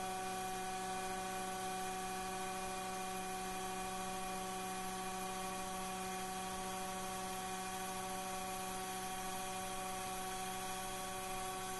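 Taig CNC mill spindle running at its top speed of 10,600 RPM, a steady whine of several tones, as a 1/8-inch flat-bottom end mill cuts a light pass in 6061 aluminum. Under it runs a steady hiss from the air-mist coolant.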